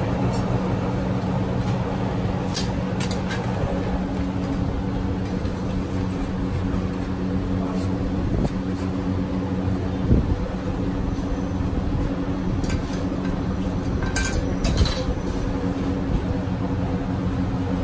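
Steady low mechanical hum with street traffic noise, broken by a few light clinks about three seconds in and again around fourteen seconds.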